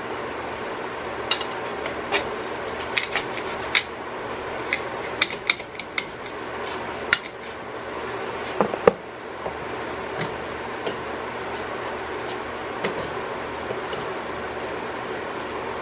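Scattered light clicks and taps from a metal speed square and a cardboard template being handled at a bench vise, over a steady hiss. The taps are busiest in the first half, and the sharpest comes about nine seconds in.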